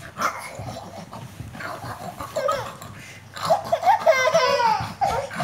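Toddlers laughing and squealing, with a long burst of rapid, high-pitched giggling about three and a half seconds in.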